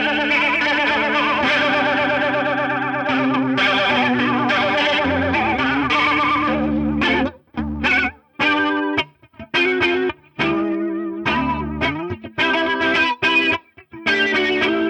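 Distorted electric guitar played through a dual analog flanger pedal, its overtones sweeping and wavering in a whooshing, jet-like way. Long ringing chords for about seven seconds, then shorter stabbed chords with short silences between them.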